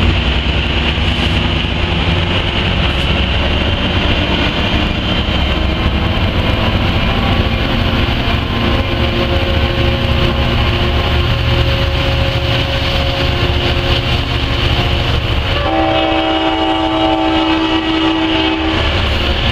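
Sounder commuter train passing: the diesel locomotive's engine and the steady rumble and rail noise of bilevel coaches rolling by. About three seconds from the end, the locomotive's horn sounds for about three seconds.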